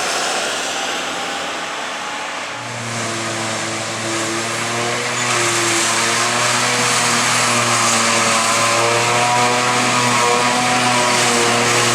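Diesel engines of heavy farm machinery running steadily during grass chopping. A second, deeper engine note comes in about three seconds in, and the sound grows louder about five seconds in.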